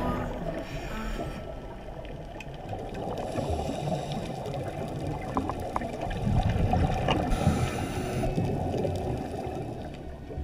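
Muffled underwater noise picked up by a GoPro in its dive housing: a low gurgling rumble of water, with a few faint clicks.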